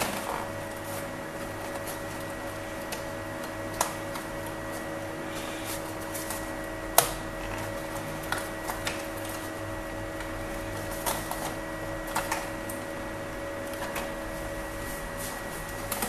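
Plastic case of an eMachines E732Z laptop being slowly pried apart by hand: scattered clicks and small snaps as its clips let go, the sharpest about seven seconds in, over a steady background hum.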